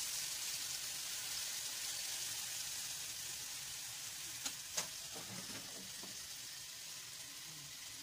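Homemade longganisa sausages sizzling in hot fat and sweet glaze in a frying pan, the sizzle slowly fading. Two light knocks come about halfway through.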